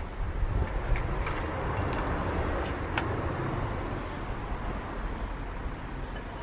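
Homemade aluminium-melting furnace running with a steady low roar, with a few sharp crackles and pops in the first three seconds.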